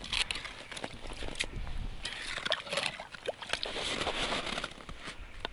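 Snow and slush crunching and stirring at an ice-fishing hole as the tip-up line is handled, with scattered short crunches and rustles.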